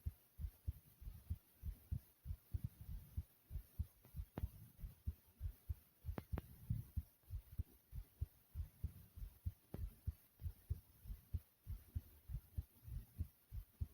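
A person's heartbeat thumping steadily in low lub-dub pairs, a little fast after jumping in place. A few faint clicks come through in the middle.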